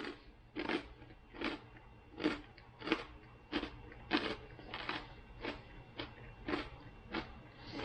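A person chewing a crunchy bagel chip: a steady run of crunches, about three every two seconds.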